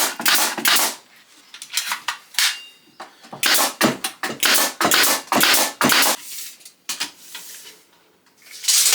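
Nails being driven into the wooden frame of a National beehive super during assembly: a run of sharp knocks coming in quick clusters, with a short lull near the end.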